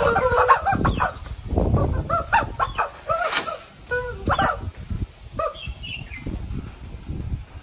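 Rubber screaming chickens squawking in a string of short honking squeals, loudest and most crowded at first and thinning out toward the end. Dull thuds of a straw broom beating the dirt ground come in among them.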